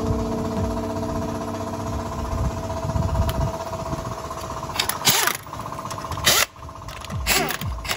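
Impact wrench on a car wheel's lug nuts, run in two short bursts about five and six seconds in, tightening the nuts as a winter tyre is fitted.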